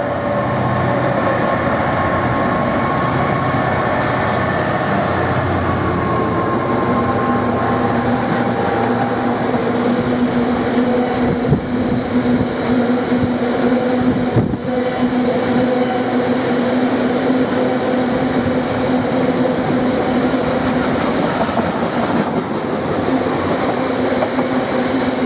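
Class 66 diesel locomotive, with its two-stroke EMD V12 engine running, passing, followed by a long rake of engineering box wagons rolling by with steady wheel-on-rail noise. Two sharper clunks come about halfway through.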